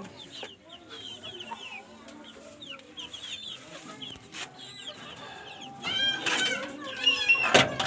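Chickens calling: a steady stream of short, high chirps, rising to louder clucking calls near the end, with a sharp knock just before the end.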